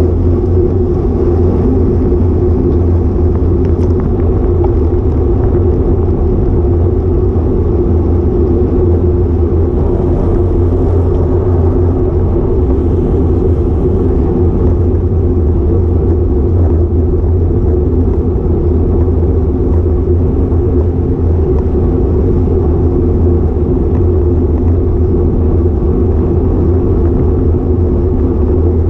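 Steady, loud low rumble of wind and road noise picked up by a bicycle-mounted action camera at riding speed, unchanging throughout.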